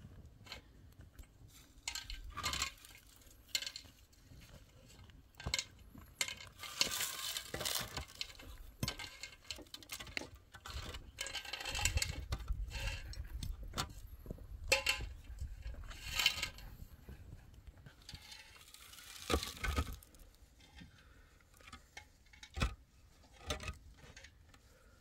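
Hollow concrete blocks being set down and shifted into place on a block wall: gritty scrapes of block on block and sharp knocks, repeated several times with short pauses between.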